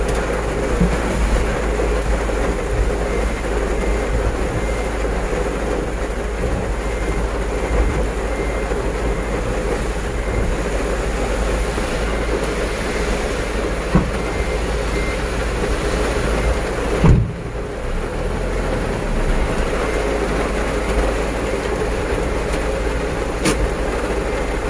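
Truck's diesel engine running steadily, heard from inside the cab, with a deep low hum. About two-thirds of the way through, the sound dips sharply for a moment, and a couple of single clicks are heard.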